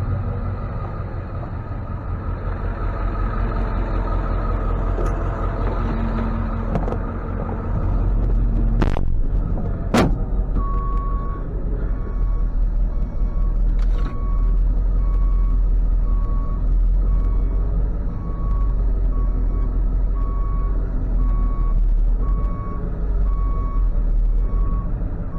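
Ford F-550 tow truck's engine running steadily; about ten seconds in, after two sharp clicks, its reversing alarm starts beeping about once a second as the truck backs up.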